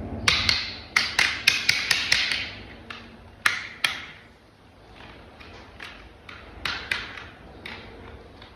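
Hard plastic toy-vehicle parts clicking and knocking together as they are handled and fitted. There is a quick run of about a dozen sharp clicks in the first four seconds, then fainter, scattered ones.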